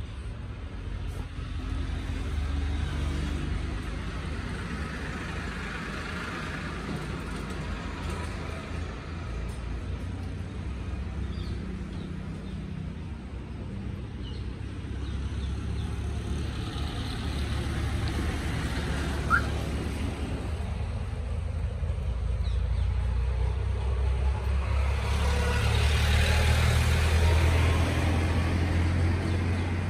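Motor vehicle road noise: a steady low rumble with a haze of road hiss, growing louder a few seconds before the end. A short high squeak sounds about two-thirds of the way through.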